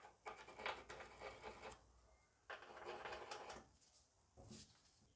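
Scraping and rubbing on a bare steel car floor pan as a hydraulic handbrake is held in place and its mounting holes are marked with a marker. There are two spells of scratching, each lasting about a second, then a light knock.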